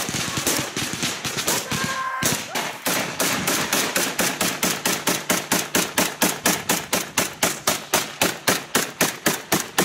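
Close rifle gunfire: a dense, irregular string of shots, a short break about two seconds in, then an even run of about four shots a second.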